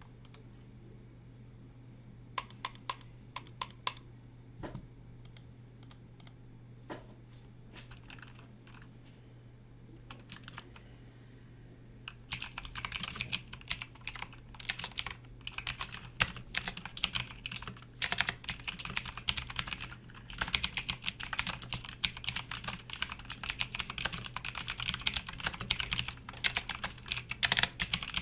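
Motospeed CK101 mechanical keyboard with clicky Outemu Blue switches being typed on. There are a few scattered key presses at first, then fast, continuous typing from about twelve seconds in.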